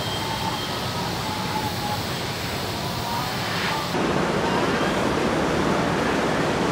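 Steady machinery noise of a car-body assembly hall, a dense hiss with faint whines. The sound changes abruptly about four seconds in, becoming fuller and a little louder.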